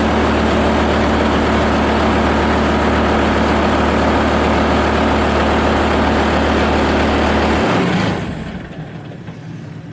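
Kubota turbo diesel engine of a Bobcat S220 skid steer loader running steadily. About eight seconds in, the engine note drops away and the sound becomes much quieter.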